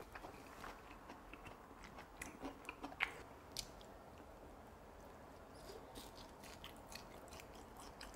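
Quiet close-up chewing and mouth smacks of a person eating chewy rice cakes, biting them off a glazed tteokkochi skewer, with scattered small wet clicks and a sharper one about three seconds in.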